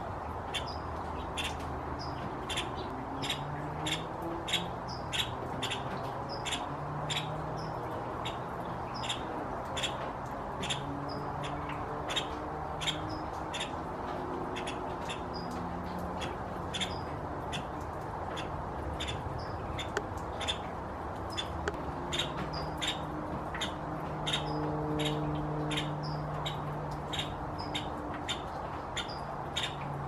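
Male Nuttall's woodpecker calling: short, sharp single call notes repeated about once or twice a second, over a faint low hum. A springtime display call, given to draw attention.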